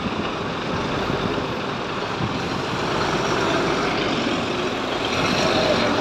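A Scania fire truck's diesel engine running and growing louder from about halfway through as the truck moves off close by.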